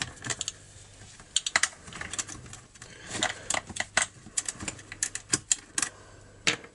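Irregular metallic clicks and taps of a hex-bit screwdriver working the bolts that hold the clutch bell housing to a string trimmer's engine, with the parts being handled. The clicks come in small clusters, most of them in the second half.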